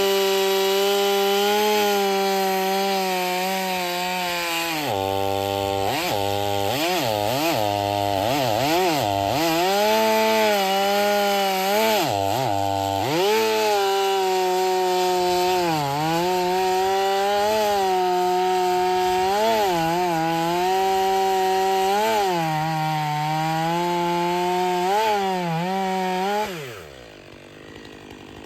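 Stihl MS 500i fuel-injected two-stroke chainsaw running at high revs and cutting wood. Its pitch dips and recovers again and again as the chain loads up in the cut, with a quick series of dips in the first half. Near the end the throttle is released and the engine winds down sharply.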